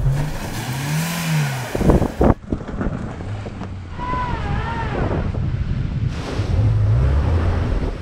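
Small old hatchback petrol engines revving and labouring as the cars crawl over rough dirt tracks, the pitch rising and falling with the throttle. The sound changes abruptly twice as one car gives way to another.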